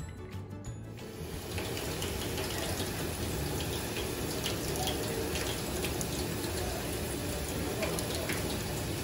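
Water pouring from a hose on a sink tap: a steady rush with light splashing that starts about a second in.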